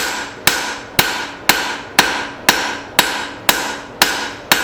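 Rounding hammer striking hot leaf-spring steel on an anvil in an even rhythm, about two blows a second. Each blow is followed by a ringing tone that fades before the next.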